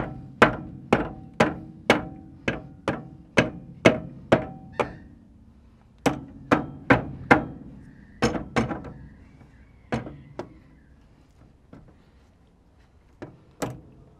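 Hammer blows on the steel steering knuckle of a Toyota LandCruiser's solid front axle, about two a second in runs with short pauses, each strike ringing briefly. The blows are knocking loose the bottom steering arm, whose cone washers are stuck. The last few strikes are lighter.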